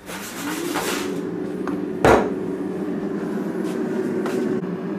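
Cosori air fryer's fan spinning up, its hum rising in pitch over the first second and then running steadily. A single knock comes about two seconds in.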